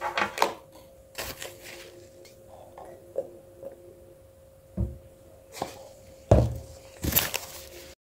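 Several separate sharp knocks and clicks from a plastic tumbler and its straw being handled close to the microphone, over a faint steady hum. The loudest knock comes about six seconds in, and the sound cuts off just before the end.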